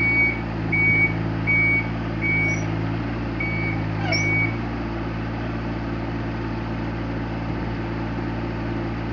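Excavator engine running steadily while its travel alarm beeps about once every three-quarters of a second. The beeping stops about four and a half seconds in, and the engine note then settles lower.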